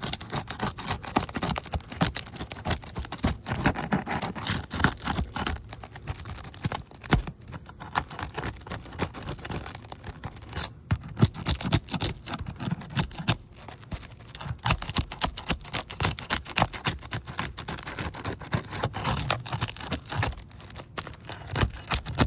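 Asphalt roof shingle being worked loose by hand and tool: a dense, irregular crackling and clicking with scraping as the sealant strip is broken and the gritty shingle surface is rubbed.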